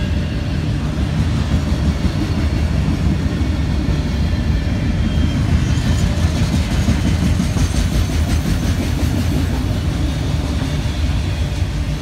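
Freight train passing close by: a steady, loud, low rumble of diesel locomotives, with a clatter of wheels on the rails joining in about halfway through.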